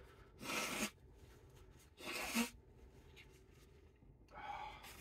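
A man blowing his nose three times in short noisy bursts about two seconds apart, the first two ending in a brief low honk, as he clears his nose after crying.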